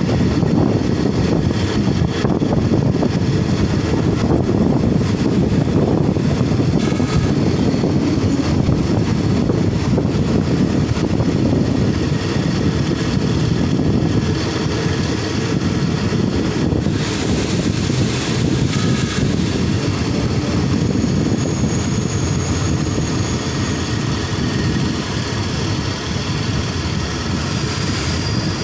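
Passenger train carriage running on the rails, heard through an open window: a steady low rumble with wind rushing past. In the last few seconds it gets a little quieter as the train slows to stop at a halt, and a faint high squeal from the brakes comes in.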